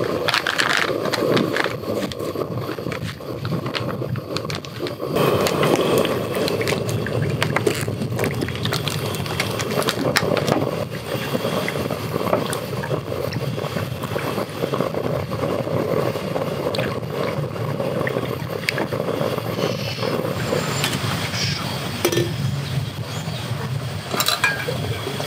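A pot of broth simmering steadily, with chopsticks now and then clicking against the metal pot.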